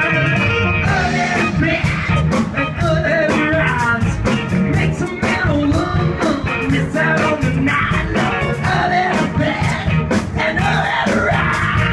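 Live band with a horn section, electric guitar, bass and drums playing at full volume over a steady drum beat, with a man singing lead into a microphone.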